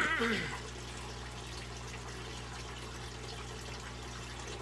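Steady trickle of water from an aquaponics system over a constant low hum. A brief wavering, falling sound comes right at the start.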